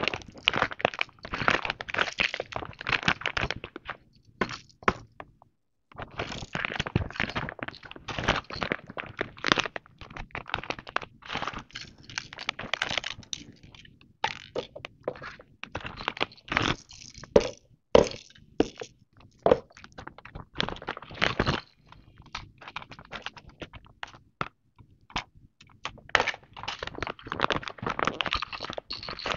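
Clear plastic packaging crinkling and rustling as baby toys are handled and pulled from their bags, with hard plastic rattles and teethers knocking against each other. The sound is irregular and stops briefly about five seconds in.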